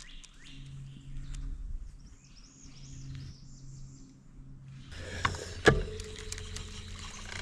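A bird singing short, repeated high notes over a steady low hum. About five seconds in, the sound changes to a louder rushing noise, and a sharp knock comes a moment later.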